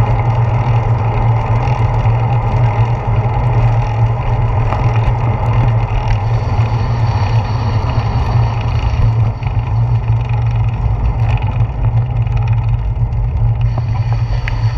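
Wind buffeting and tyre-on-asphalt noise picked up by a handlebar-mounted GoPro on a moving bicycle: a steady, loud low rumble with a hiss above it.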